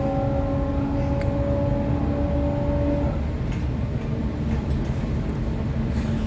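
Sydney Trains Waratah electric multiple unit running, heard from on board: a steady rumble of wheels on rail, with a steady electric motor whine that fades out about three seconds in.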